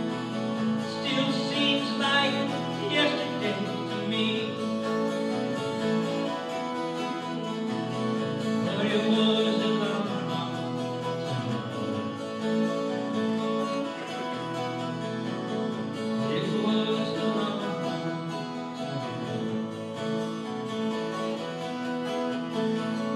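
Live school ensemble music: an acoustic guitar with held chords under it, and a wavering melody line that comes to the fore three times, at the start, about eight seconds in, and about sixteen seconds in.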